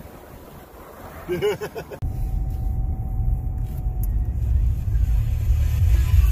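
Car stereo being turned up: music with deep bass starts abruptly about two seconds in and grows steadily louder as the volume knob is turned.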